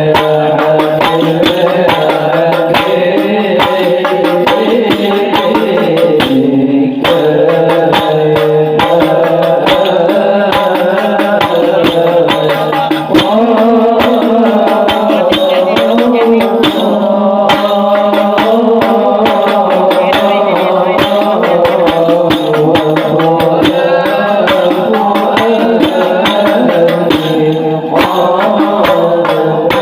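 Arabic maulid (mawlid) devotional singing: voices chanting a sustained, melismatic melody over a quick, steady beat of hand drums.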